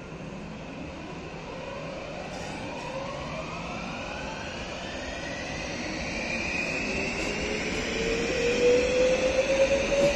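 HŽPP low-floor electric multiple unit pulling away and accelerating, its traction motors giving several whines that climb steadily in pitch and grow louder, over the rumble of its wheels on the rails.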